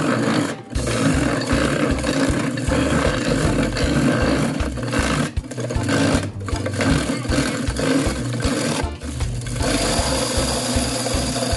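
Electric twin-blade ice crusher running, its blades grinding ice cubes into fine shaved ice with a loud, steady rattling and scraping. The grinding drops out briefly several times.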